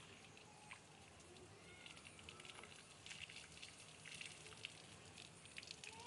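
Faint pattering and splashing of water poured from a tilted pressure cooker onto a concrete floor, a light crackle of small drops that thickens midway.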